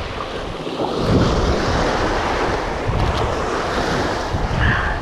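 Small waves washing onto a rocky shore, with wind buffeting the microphone; the surf swells about a second in and again around three seconds.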